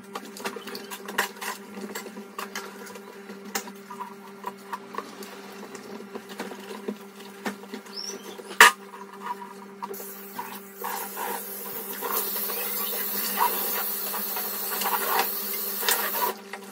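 Hand dishwashing at a stainless steel sink: dishes and cutlery clinking and being scrubbed, with one sharp clink about halfway. From about ten seconds in the tap runs, louder from about twelve seconds, and shuts off just before the end, over a steady low hum.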